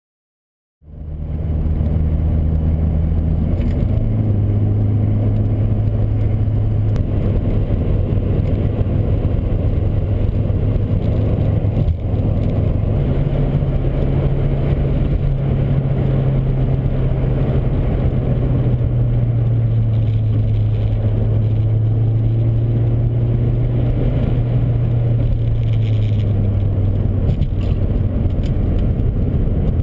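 Inside a moving car: steady engine drone and road noise that starts abruptly about a second in. The engine's low hum shifts in pitch a few times.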